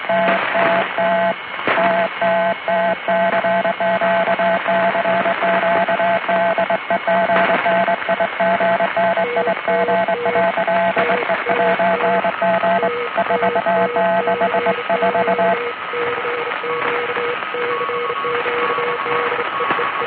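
Morse code received by radio over static: Niton Radio's strong keyed tone sends the safety signal TTT, then a CQ gale warning. Fainter stations key on other pitches underneath, one lower from about nine seconds in and one higher near the end, after the strong signal stops at about fifteen seconds.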